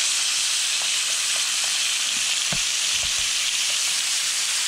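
Chunks of carne de sol frying in very hot margarine in a pan: a steady, loud sizzle with a few light ticks about a second to three seconds in.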